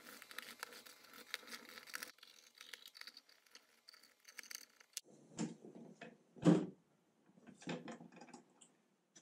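Hand screwdriver turning the screws of a plastic kayak deck hatch, a fast run of fine clicks and scraping. Then a few knocks and thumps on the kayak's plastic deck, the loudest about six and a half seconds in.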